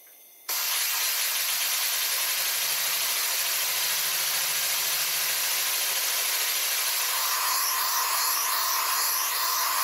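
3D-printed nutating-disk air engine fed compressed air at full pressure, starting suddenly about half a second in as the hose is coupled: a loud, steady hiss and rush of air through the engine with its carbon-fibre propeller spinning fast, a faint low hum underneath for a few seconds.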